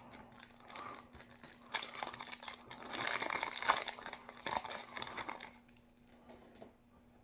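Foil wrapper of a trading-card booster pack crinkling as it is handled and torn open, for about five seconds before it fades to faint card handling. A faint steady hum runs underneath.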